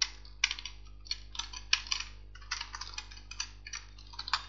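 Typing on a computer keyboard: an irregular run of quick, sharp keystrokes as numbers and commas are entered.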